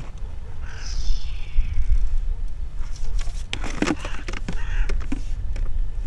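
A fish splashing and thrashing at the water's surface as it is drawn into a landing net: a burst of sharp splashes starting about three seconds in and lasting a couple of seconds. Before that, about a second in, a bird gives one short falling call.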